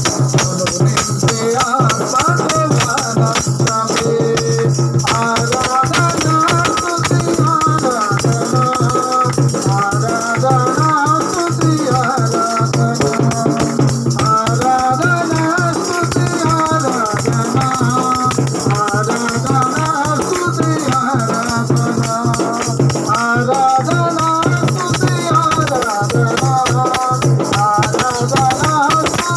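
Christian devotional song sung into a microphone through a PA, with a double-headed barrel drum and a steady, fast rattling of hand percussion throughout.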